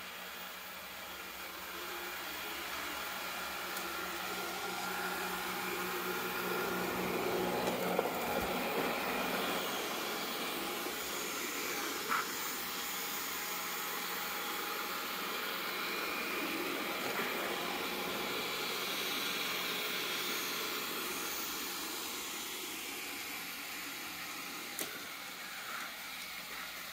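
Robot vacuum cleaner running with a steady whir, growing louder as it comes close and easing off as it moves away, with a couple of light clicks.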